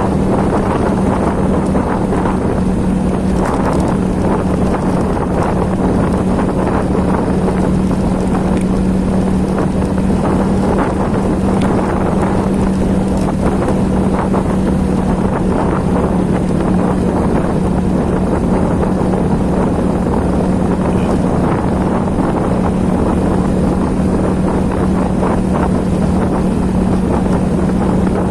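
Heavy rain pouring down as a dense, steady patter, with a steady low hum running under it.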